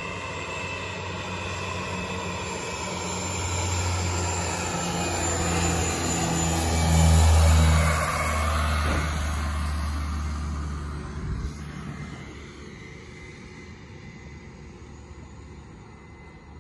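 Seaplane (a floatplane) flying low past with a steady engine drone. The drone grows louder to its closest pass about seven to eight seconds in, then fades away as the plane comes down to land on the water.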